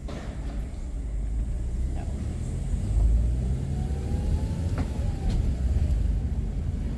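Car driving: a steady low rumble of engine and road noise from inside the car, with a few faint clicks.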